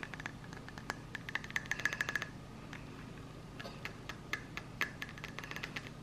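Long manicured fingernails tapping on a ceramic mug, ASMR-style: light, sharp clicks, some single and some in quick rapid runs, one run about a second in and another past the middle.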